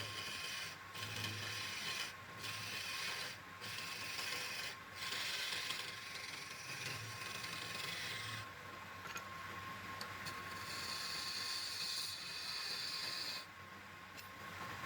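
Rhythmic rasping strokes of a tool on wood, about one every second and a bit, over a steady machine whine. After about eight seconds the strokes stop and give way to a steadier scraping hiss.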